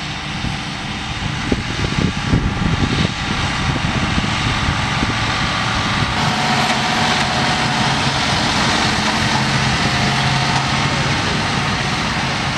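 John Deere tractors' diesel engines working steadily under load as they pull cultivators through the soil, growing louder after a few seconds as one draws nearer. A few sharp knocks come about two seconds in.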